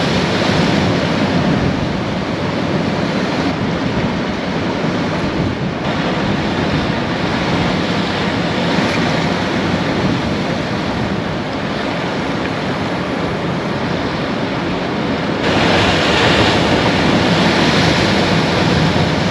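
Sea surf breaking and washing over the rocks, a steady rush of water that swells louder about three quarters of the way through.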